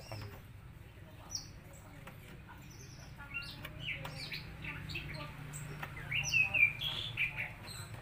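Small birds chirping in short repeated calls, few at first and thick in the second half, over a low steady hum.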